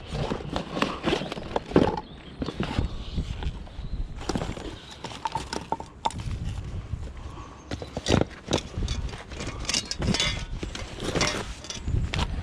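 Pieces of scrap metal, including lengths of extrusion, being pulled out and moved about: a run of irregular clanks and knocks, some with a short metallic ring.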